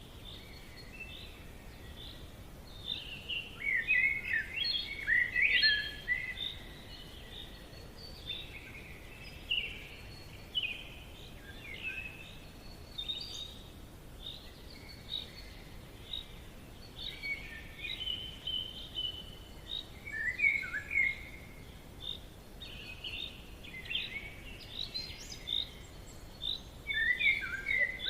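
Several birds singing in a forest, a steady stream of short high chirps and trills, with livelier bursts about four seconds in, near the middle and near the end, over a faint steady background hiss.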